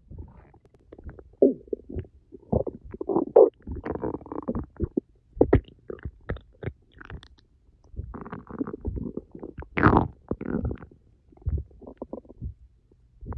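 Empty stomach gurgling and rumbling from hunger after ten hours without food, in irregular runs of short gurgles with brief pauses between them. The loudest gurgles come about three and ten seconds in.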